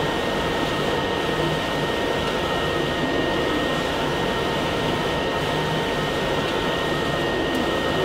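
Robotic flatbed cutting table running, a steady whirring hiss with a thin high tone as its tool head works over a sheet of carton stock.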